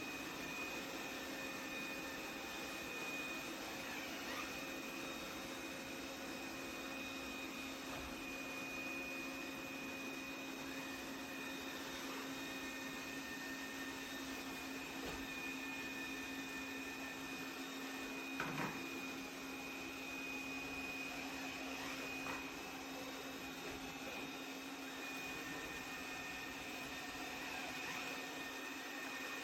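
Roborock Qrevo Curv S5X robot vacuum running: a steady motor hum and a high whine, with a few brief knocks, the clearest about two-thirds of the way through.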